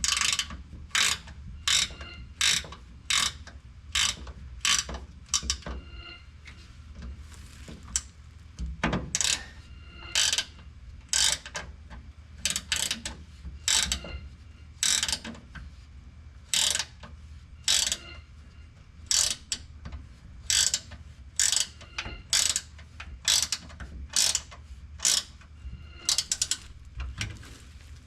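Hand ratchet wrench clicking in short strokes as a bolt is cranked tight, a long run of sharp clicks at about one to two a second with brief pauses.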